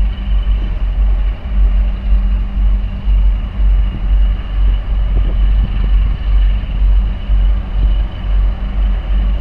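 Wind buffeting the microphone in an uneven low rumble, over a steady engine drone from the passing container ship and the harbour tug beside it.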